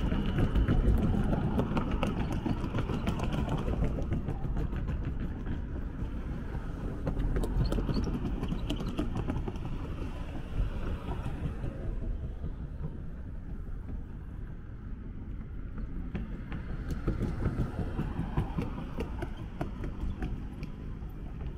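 Road traffic: cars driving past close by, rising and fading, over a steady low rumble, with a run of light clicks that fit footsteps on pavement.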